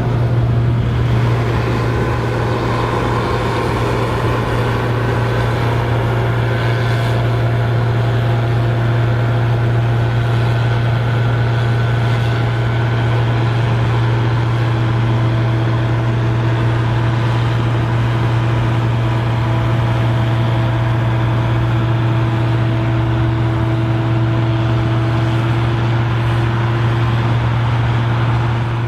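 Case IH 1455 XL tractor's six-cylinder diesel engine running steadily at constant speed. It gives a deep, even drone with faint steady whining tones above it.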